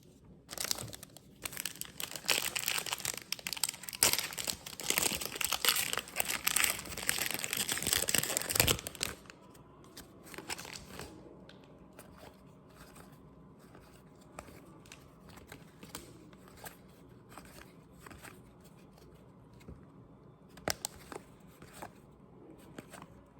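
Foil wrapper of a trading-card pack being torn open and crinkled, loud and dense for about nine seconds, followed by faint rustles and light clicks of the cards being handled.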